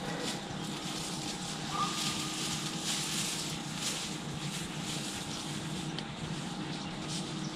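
Soft, intermittent rustling and crackling of dry swamp grass as a white-tailed buck walks through it, over a steady low hum.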